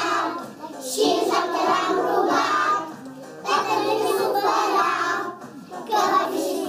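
A group of young children singing a song together over music, in phrases with short breaks between them.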